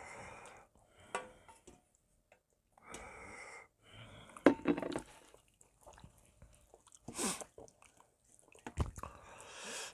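Someone eating oyster and radish soup: chewing and breathing, with a few sharp knocks of a wooden spoon against stainless-steel pot and bowl, the loudest cluster about halfway through.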